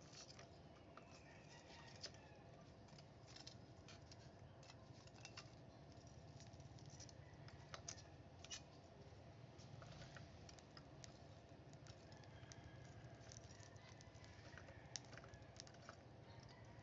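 Faint, irregular clicks and clinks of metal tongs picking up and setting charcoal lumps in the stove, over the low steady hum of the stove's electric fan blower.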